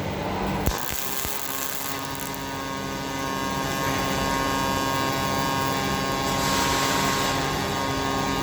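MAG welding arc of a robotic welder on 3 mm stainless steel: it strikes with a click just under a second in, then burns with a steady buzzing hiss and cuts off near the end.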